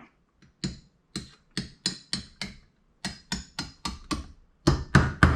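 A small hammer tapping a carburetor part down into place, about fourteen light knocks at roughly three a second, with the last few the hardest.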